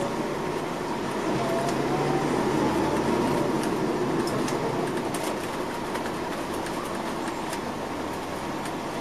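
Inside the cabin of a 2004 MCI D4500CL coach under way: the Caterpillar C13 diesel and Allison transmission running with a steady drone and road noise. A whine rises in pitch over the first three seconds as the coach picks up speed. Light clicks and rattles come from the cabin.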